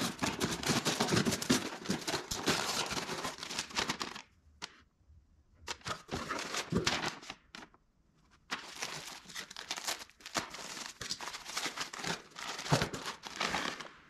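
Packaging being torn open and crumpled by hand: crackling, crinkling and tearing in irregular bursts, with a short pause about four seconds in and another near the eighth second.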